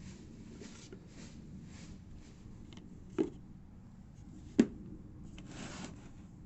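Small objects being handled: soft rustling and rubbing, with two light knocks about a second and a half apart, the second louder.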